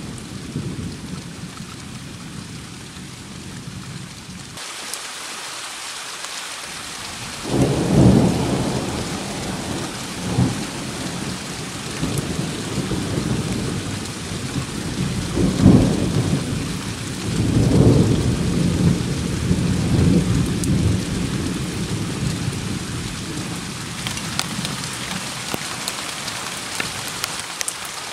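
Steady rain with rolling thunder: a low rumble starts about a quarter of the way in and swells and fades in several peaks. The rain's hiss changes abruptly a few seconds in, and a crisper patter of drops comes near the end.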